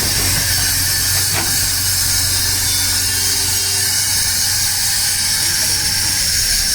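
Heavy diesel engine running steadily, with a steady high hiss over it.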